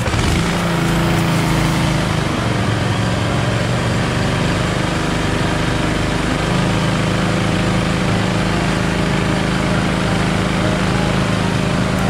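A car-wash pump motor running steadily with an even hum, driving the spray during a snow-foam wash; its tone shifts slightly about six and a half seconds in.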